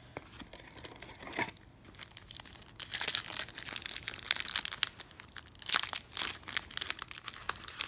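Baseball card pack wrapper crinkling and tearing: a few light handling clicks, then dense crackling from about three seconds in.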